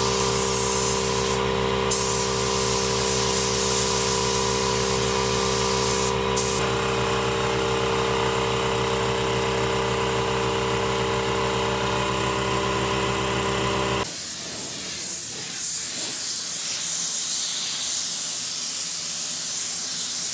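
Spray gun hissing with compressed air as paint is sprayed, the hiss cutting off sharply twice where the trigger is let go, over a steady machine hum. About two-thirds of the way through, the hum stops abruptly and only hiss remains.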